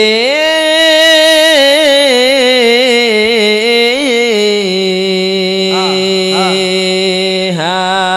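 A man singing a long, melismatic sholawat line solo through a microphone. He holds each note with wavering ornaments, his pitch steps down about halfway through, and the line ends near the close.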